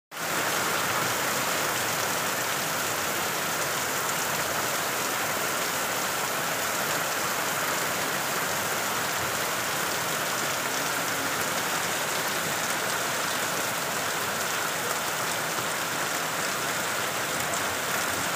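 Rain falling steadily, an even hiss that holds at the same level throughout without letting up.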